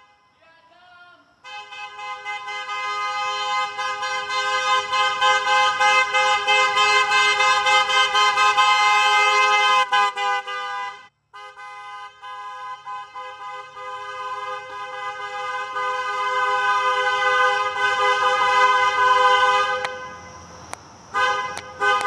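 Car horns sounding at two pitches together, held in a long steady blast of about nine seconds, cut briefly, then held again for most of the rest.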